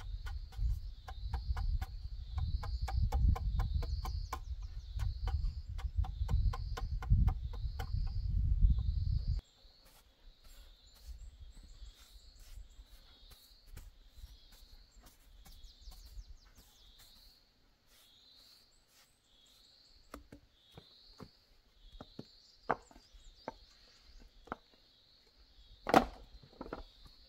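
A hammer strikes a chisel carving a wooden stool top in quick, steady blows, each with a dull thud, and stops suddenly after about nine seconds. Then come faint sweeping with a straw broom and scattered light knocks, with one sharp knock near the end. A high chirp repeats about once a second throughout.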